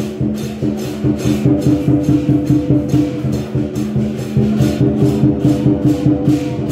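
Music with a steady beat: held low tones over regular percussion strokes, about two or three a second.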